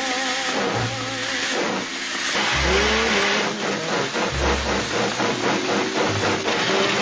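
Hand-cranked sound-effect machines making a dense, rhythmic mechanical hiss that pulses about three times a second in the second half, mixed with sliding tones and short low notes.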